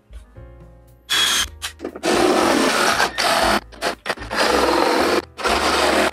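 Cordless oscillating multi-tool cutting through the plastic rear body panel of a golf cart, starting about a second in and running in several spells with brief pauses. Background music plays underneath.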